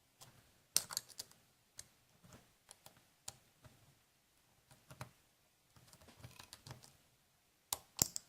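Irregular small clicks and scrapes of a pick working the pins inside a Master Lock Lockout padlock's core under light wrench tension, while searching for the spool pin; the sharpest clicks come about a second in and near the end.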